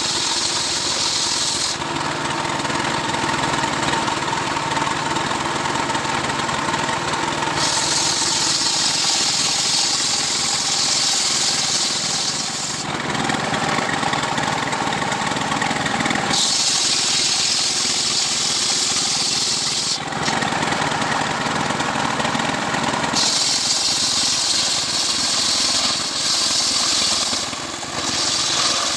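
Stihl chainsaw running hard while cutting a coconut palm trunk into a beam, with a hissing cutting noise that comes and goes in stretches of a few seconds as the bar bites into the wood and eases off.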